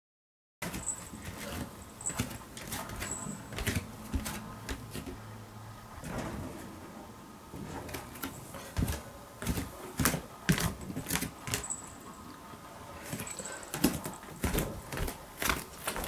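Handheld camera handling noise with irregular sharp knocks, clicks and footsteps on a wooden floor inside a small room, starting about half a second in.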